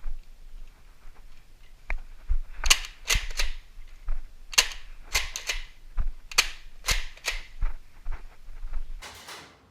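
Nerf foam-dart blasters firing repeatedly: a string of sharp snapping pops, often two or three in quick succession.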